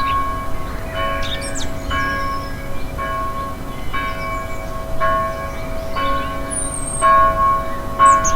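Church bell tolling steadily, about one stroke a second, each stroke ringing on into the next. Birds twitter and chirp over it.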